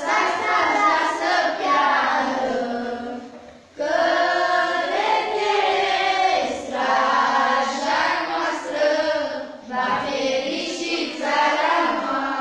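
A group of children and women singing together, with a brief break between phrases about four seconds in.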